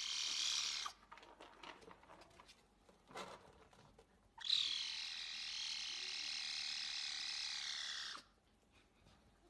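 A cat making a strange, high, electric-sounding call: one call ends a little under a second in, then after a few faint clicks a second call starts sharply and is held steady for nearly four seconds before cutting off.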